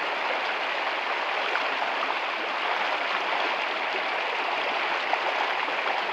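Shallow rocky river rushing steadily, an even wash of running water.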